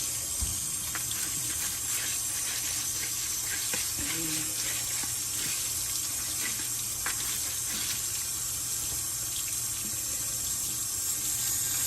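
Water running steadily from a sink tap or sprayer, splashing as dirty parts of a wet-dry floor vacuum are rinsed clean, with a few faint small knocks of handling.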